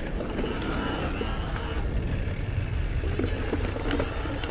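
Steady low rumble of wind on the microphone and knobby tyres rolling over a dirt forest trail as a Giant Trance E+ Pro 2 electric mountain bike is ridden, with a few small clicks and rattles from the bike.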